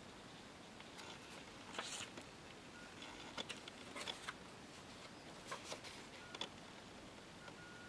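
Faint scattered clicks and rustles of paper cards being handled and swapped, over quiet room tone.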